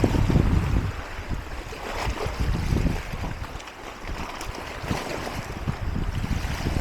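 Wind buffeting the microphone over the wash of sea waves against rock, gusting hardest in the first second, easing off in the middle and picking up again near the end.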